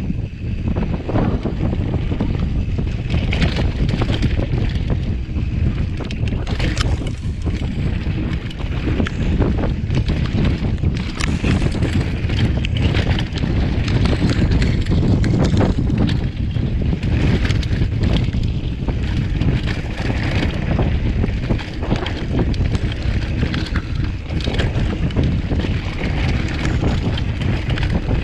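Wind buffeting the camera microphone on a mountain bike descending dirt singletrack at speed, mixed with tyres rolling over dirt and many short rattles and knocks from the bike over bumps.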